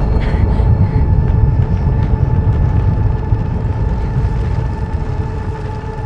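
Cinematic sound-design drone: a deep, heavy rumble under a steady held two-note hum, slowly fading out.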